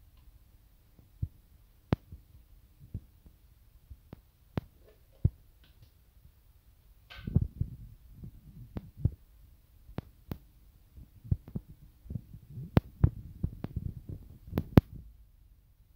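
Food-handling sounds: scattered clicks and knocks as hands arrange sliced potatoes and carrots in a stainless steel pot and lay raw sardines on top from a plastic container. From about seven seconds in the knocks come more often and louder, with soft rustling between them.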